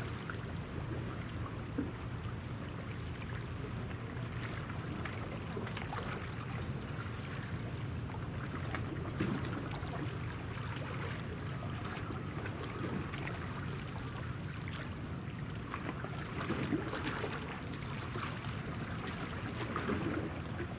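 Steady low hum of the helicopter destroyer JS Kaga's machinery, under a hiss of wind and lapping water.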